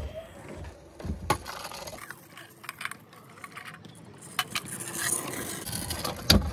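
Stunt scooter rolling on asphalt, with scattered sharp metal clacks and scrapes from the deck and bars. A rolling hiss builds in the second half.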